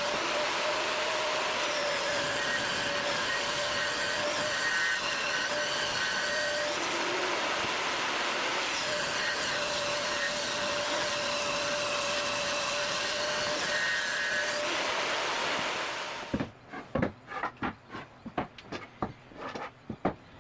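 An electric woodworking power tool runs steadily on wood for about sixteen seconds, its sound shifting a few times as it works, then stops. It is followed by a quick series of sharp knocks, like wood pieces being handled.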